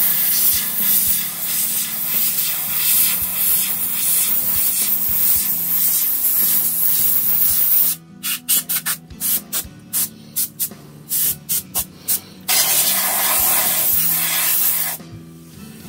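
Aerosol spray can with a thin straw nozzle hissing over a guitar fretboard: one long continuous blast of about eight seconds, then a quick series of short puffs, then another long blast of two or three seconds near the end.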